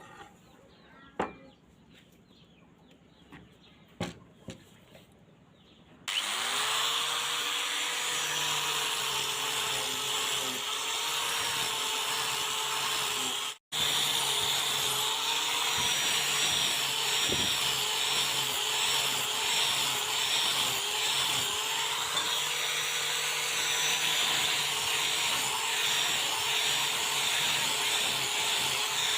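A few sharp knocks, then an electric power tool spins up about six seconds in and runs on. Its motor pitch dips and recovers again and again as it is pressed into work on the knife, with one momentary dropout about halfway.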